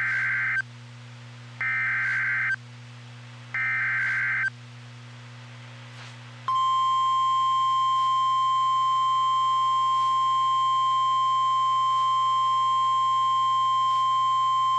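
NOAA Weather Radio EAS alert: three short, harsh digital SAME data bursts about a second apart. Then, about six seconds in, the steady single-pitch warning alarm tone starts, which signals that a new warning broadcast is coming.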